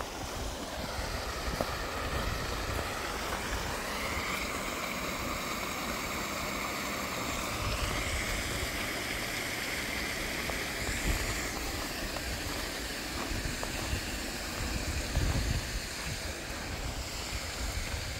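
A shallow creek running over rocks: a steady rush of flowing water whose tone shifts a few times. A low rumble of wind on the microphone runs underneath.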